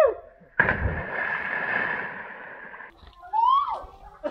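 Water splashing and rushing for about two seconds, starting abruptly, followed by a short rising-and-falling call from a voice.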